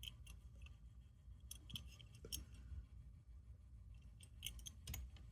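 Near silence with faint scattered clicks and taps from a small diecast model fire engine being handled, over a low steady hum.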